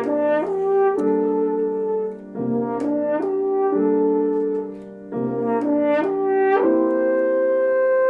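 Late-19th-century Dehmal Vienna horn playing sustained melodic phrases over piano accompaniment. Phrases break briefly about two and five seconds in, and the horn settles on a long held note for the last part.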